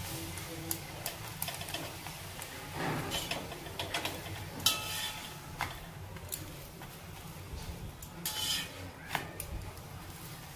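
Metal spatula scraping and clicking against a tawa as it presses and turns a methi paratha frying in ghee. The scrapes come at irregular moments over a steady low background noise, a couple of them sharper with a brief metallic ring.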